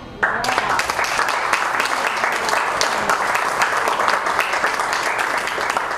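Audience applause: dense, steady clapping from a club crowd that starts suddenly a moment in, as soon as the band's final chord has died away.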